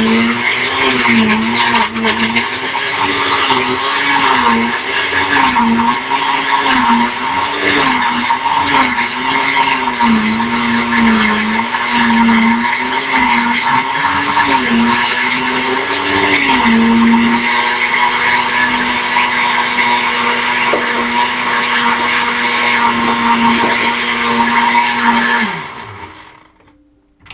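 Countertop blender motor running on a frozen berry smoothie. Its pitch wavers up and down about once a second for the first half, then runs steady. About 25 seconds in it switches off and winds down.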